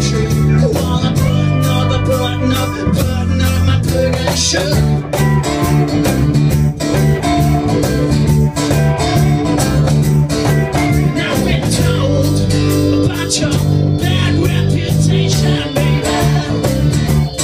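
Live band playing a rock 'n' roll song: amplified guitar over strong low notes and a steady beat.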